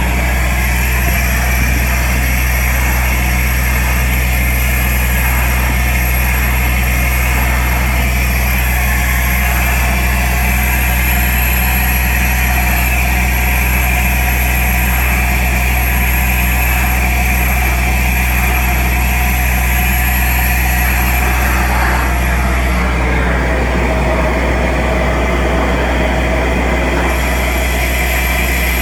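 Compact soil-vacuum excavation machine running steadily while its suction pipe draws soil out of a hole beside a tree: a loud, constant machine drone with rushing air. Its tone shifts slightly about 22 seconds in.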